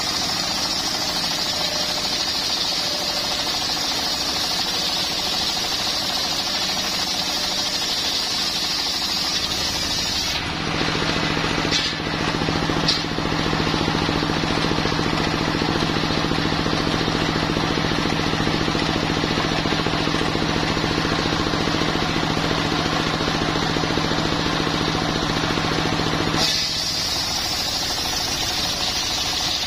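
A homemade engine-driven circular sawmill running. The blade spins with a high whine, then from about ten seconds in it cuts lengthwise through a coconut log, which makes the sound lower and harsher. Near the end it runs free again.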